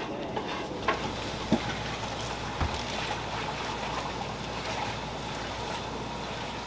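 Steady shop or kitchen room noise with a low hum, broken by three light knocks in the first three seconds as a plastic takeaway sushi tray is handled.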